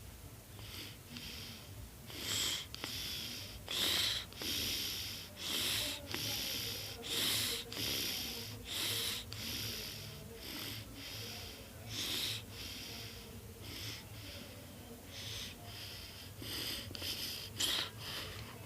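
Breathy snuffling close to the microphone: a run of short hissing breaths, about one a second, strongest in the first half.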